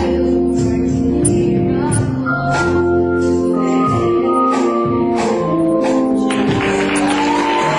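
Gospel music with organ chords and singing, over a steady beat; about six seconds in a bright cymbal-like wash comes in on top.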